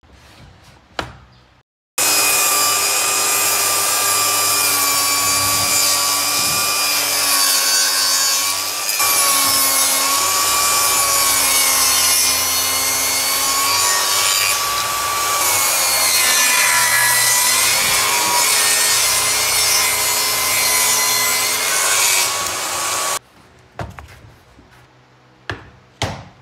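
Jobsite table saw ripping wooden boards: a loud, steady motor whine over the cutting noise, its pitch dipping slightly as the blade takes the load. It cuts off suddenly about three-quarters of the way through, followed by a few light knocks.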